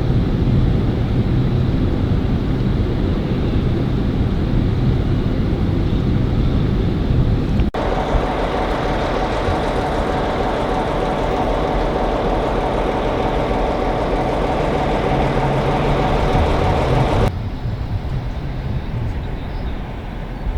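Railway train noise, steady and loud, in three short clips cut together; the middle clip carries a steady hum.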